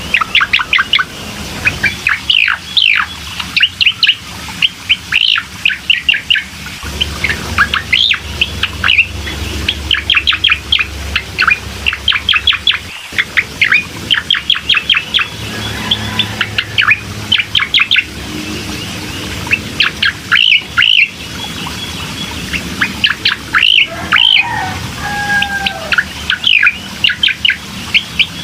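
Cucak koreng singing: rapid runs of short, sharp chirping notes, each sweeping down in pitch, broken by brief pauses, over a faint steady low hum.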